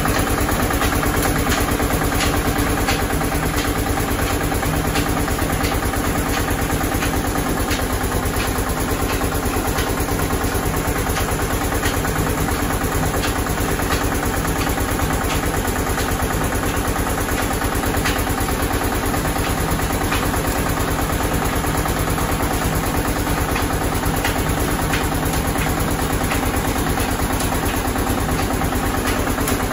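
Belt-driven oil expeller press machinery running steadily: a constant mechanical hum from the press and its drive, with faint repeated clicks.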